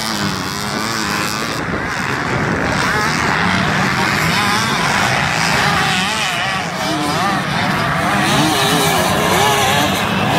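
Several motocross dirt bike engines racing, their pitch rising and falling as riders rev and shift, with more than one engine heard at once.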